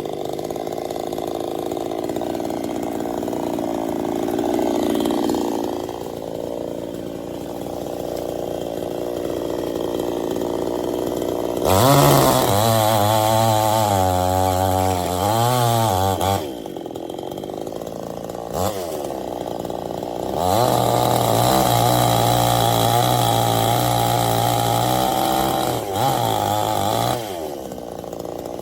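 BILT HARD 46cc two-stroke gas chainsaw running, at a lower, wavering engine speed at first. About halfway through it is revved up and held high for a few seconds, drops back, then is held high again for several seconds before easing off near the end.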